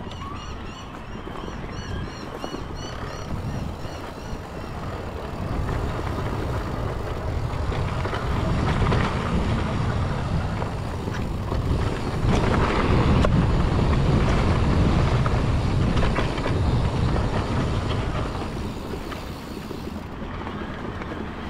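Wind buffeting the handlebar-mounted microphone and knobby Maxxis tyres rolling over a dirt trail while an electric mountain bike is ridden, a steady rumbling rush that grows louder through the middle.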